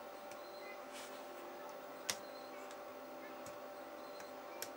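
Plastic pry tool working the Samsung Galaxy S4's frame apart: a few sharp clicks as the housing clips snap loose, the loudest about two seconds in and another near the end, over a steady background hum.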